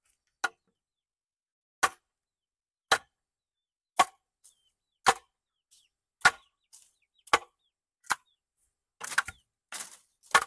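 A hand tool striking wood in sharp single blows, about one a second, with a quicker run of lighter hits near the end.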